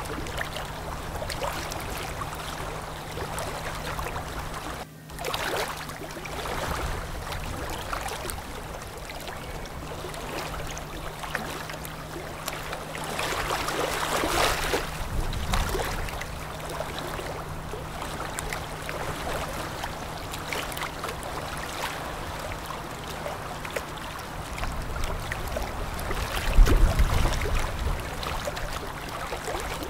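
Motor patrol boat running along a river: a steady low engine hum over the rush of water from its bow wave. The water noise grows louder about halfway through, and a low rumble swells near the end.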